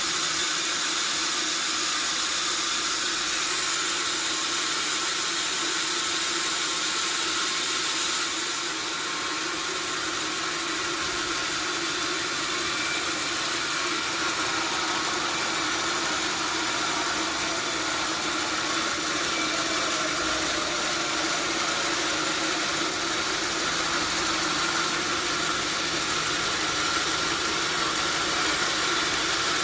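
Sawmill machinery running steadily: a constant motor hum with a hiss over it, the hiss easing a little about eight seconds in.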